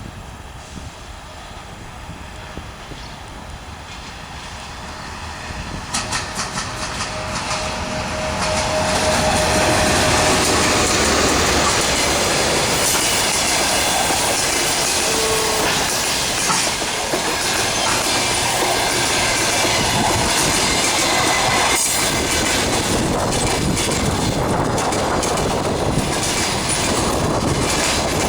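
EP1M electric locomotive and its passenger coaches approaching and passing close by. The noise builds over the first several seconds, then runs loud and steady, with the wheels clacking over rail joints.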